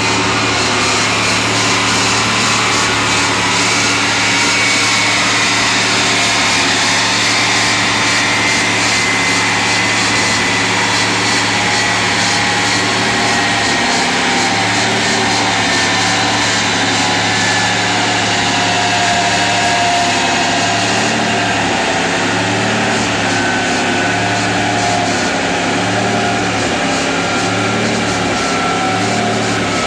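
A Lamborghini running on a chassis dynamometer, a steady loud mechanical drone with a high whine that slowly falls in pitch. Near the end a low pulsing repeats every couple of seconds.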